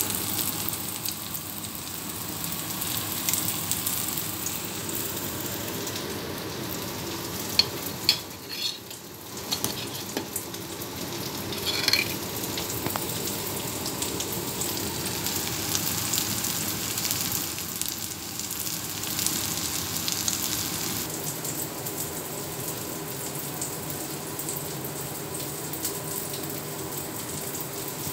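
Pork patties frying in hot oil in a pan: a steady sizzling hiss, broken by a few sharp knocks about a third of the way in.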